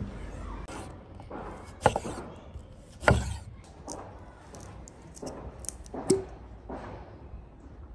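A series of sharp knocks and taps: a knife cutting a lemon on a wooden chopping board, then a glass bottle and a cut-crystal glass handled and set on a wooden table. The loudest knock comes about three seconds in, and one tap about six seconds in rings briefly.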